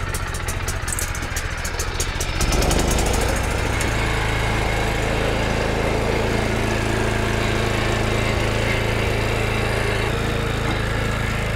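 Small petrol engine of a walk-behind rotary tiller, just started and running, ticking over at first and then throttled up about two and a half seconds in, after which it runs steadily at the higher speed. Its owner says the machine is in good shape.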